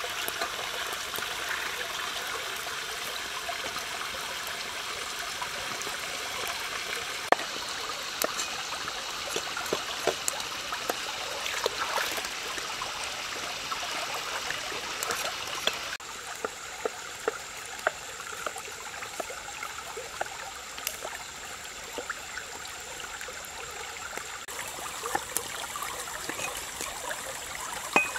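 A shallow stream running steadily, with scattered sharp clicks. In the second half, a cleaver knocks on a wooden chopping board every second or so as it slices a root.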